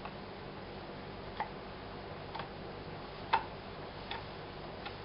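Carving knife cutting into hard, dry sycamore: a short sharp snick with each stroke, about one a second, the one a little past the middle the loudest. A faint steady hum lies underneath.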